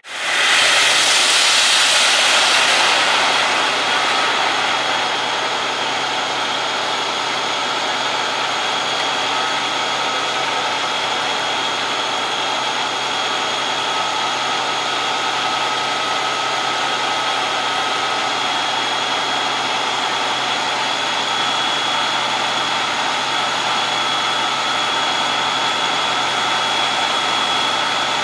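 Fire engine running to pump water to a hose line. A loud steady rushing drone with a thin high whine over it, mixed with the hiss of the hose spray. It is loudest for the first couple of seconds, then holds even.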